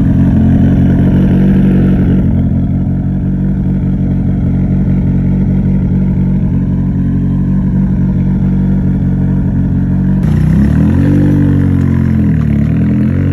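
Toyota AE86 Trueno's four-cylinder engine running at a steady speed, then its pitch rising and falling in several swings near the end as the revs change.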